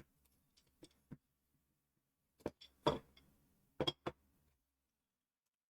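Hands handling small radio gear and its cable connectors: a scattering of short clicks and light knocks, in two small clusters, about a second in and again from about two and a half to four and a half seconds in.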